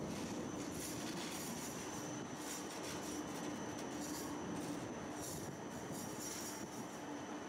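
Electric tram running along its street track, heard from on board: a steady rumble with a constant low hum and a faint high whine, with brief high hisses now and then.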